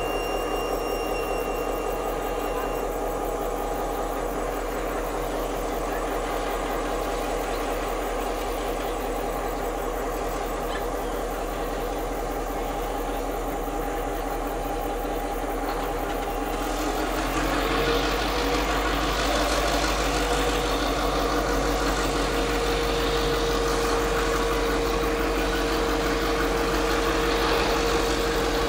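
Diesel-electric locomotive engine running steadily as the locomotive slowly moves a string of wagons during shunting. About seventeen seconds in it grows louder and a steady hum joins it.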